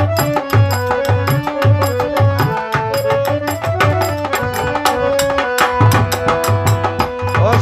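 Instrumental interlude of a Baul folk song: a harmonium holds the melody over a dhol beating a steady rhythm, with small mandira hand cymbals clinking on the beat.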